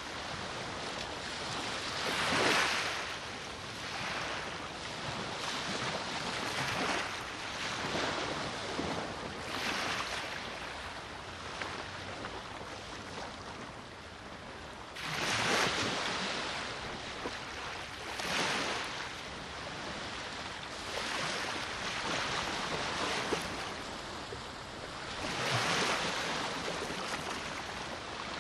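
Small sea waves breaking and washing onto the shore, a rush of surf every two to three seconds, with a lull in the middle and a louder wave about halfway through, over a steady hiss of wind.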